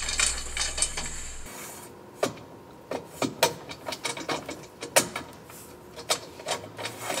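Irregular light metal clicks and knocks, about a dozen, as the steel pieces of a trailer mover's actuator bar and their bolts are slid and fitted together by hand.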